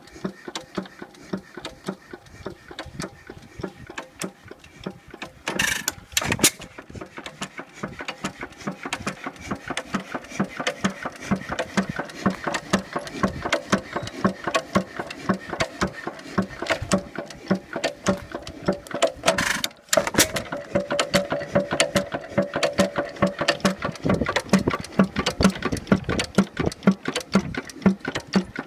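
Six-horsepower Stover hit-and-miss engine running, a fast steady mechanical clicking, with two louder bursts about six and twenty seconds in.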